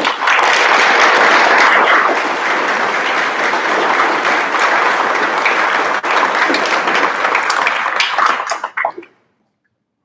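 Audience applauding, a dense patter of many hands clapping that thins to a few scattered claps and stops about nine seconds in.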